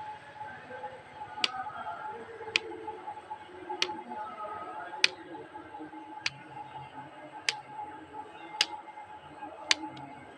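Sharp, evenly spaced clicks, about one every 1.2 seconds, over a faint steady hum.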